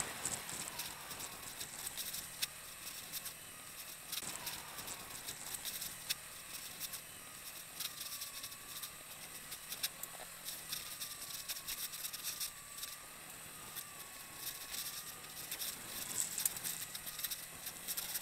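Motorcycle riding over a rough dirt track: dense rattling and crackling from the bumps and wind on the microphone over a faint, wavering engine note.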